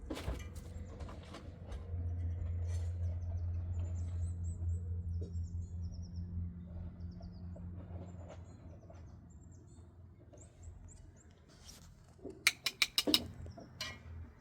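Small birds chirping in short high calls over a low rumble that swells in the first half. Near the end comes a quick run of about six sharp knocks, the loudest sounds here.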